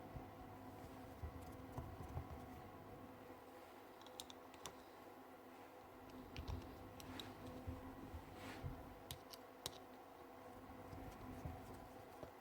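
Faint, scattered small clicks and taps, a dozen or so at irregular moments, of small drill parts being handled during reassembly.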